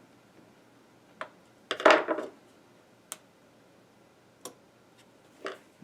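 Scattered light clicks and taps of metal and a screwdriver as the loosened mounting screws of a Commodore 1541 disk drive's mechanism are worked and the drive is nudged a hair to adjust its head alignment. There is one louder clunk about two seconds in.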